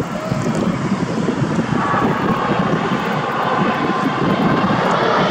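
Airbus A380's four Rolls-Royce Trent 900 jet engines on final approach, a loud steady rumble. A thin whine comes in about two seconds in, and the sound grows slightly louder near the end.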